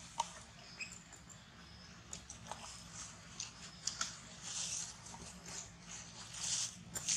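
Small clicks and smacks of a baby macaque eating a piece of fruit, followed by a few brief rustling scuffles as it moves about on the mossy stone.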